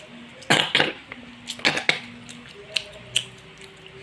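A young girl coughing twice in hard bursts about a second apart, having choked on a spicy snack.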